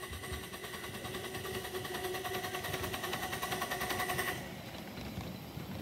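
Miniature steam locomotive working past, its exhaust beats coming rapid and even, with a steady high tone running with them; both cut off abruptly about four seconds in.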